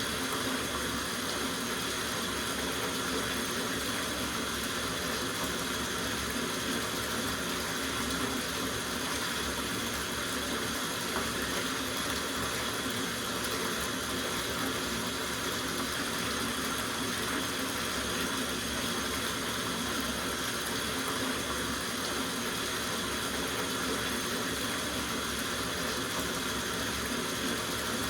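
Water running steadily from a tap into a soaking bathtub, an even, unbroken rush.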